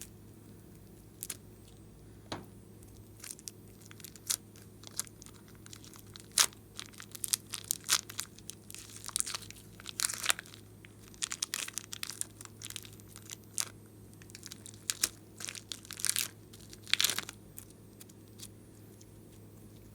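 Glossy slime being pressed and worked by hand, giving irregular crackling pops and clicks that come thick and fast from about six seconds in until near the end, with only a few scattered clicks before and after.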